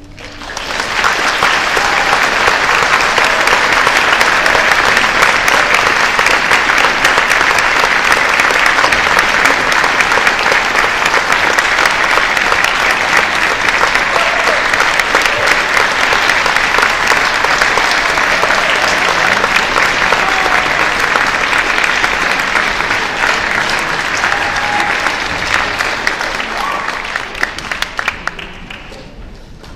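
Audience applauding. It builds about a second in, holds steady, then thins out over the last few seconds into a few scattered claps.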